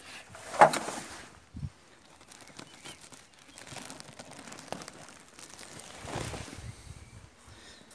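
Rustling and crumpling of a cloth hive cover being handled as a beehive is opened, with a few knocks, the loudest about half a second in.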